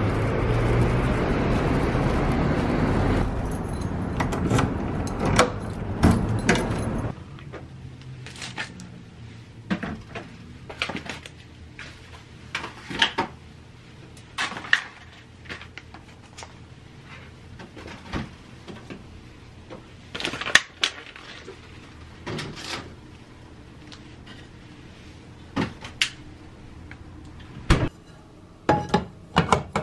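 Steady outdoor noise while walking with a plastic shopping bag, which ends about seven seconds in. Then a quiet kitchen with a string of sharp clicks, knocks and plastic rustles as groceries are put into a fridge, and a few more clicks near the end at a Zojirushi rice cooker.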